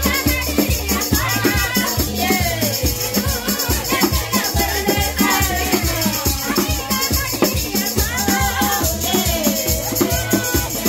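Lively music with singing over a repeating bass line, with a tambourine and a gourd shaker rattling along in time.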